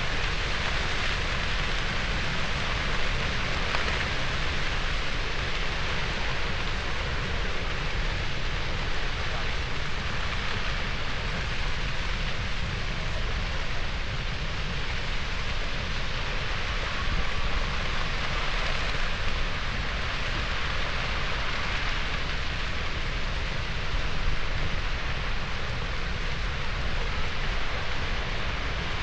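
Dry grass burning on a volcano's slope: a dense, steady crackling of the fire, with a low rumble beneath it.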